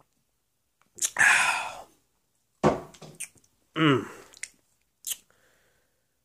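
A man with a mouthful of milk-dunked cookie swallowing and letting out a long breathy exhale, then a few short wordless hums from the throat and a small mouth click.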